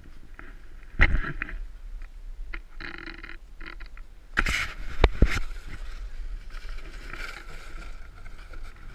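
Crunching and scuffing through packed snow, with a loud thump about a second in and a few louder thumps around five seconds in.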